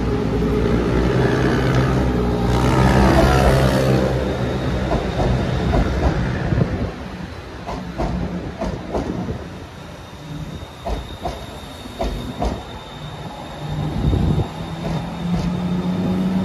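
Elevated Bangkok Skytrain electric train coming in and passing close by. First its motors whine, falling in pitch, then a string of wheel clicks over the rail joints fades as it moves away. Near the end a steady low drone builds.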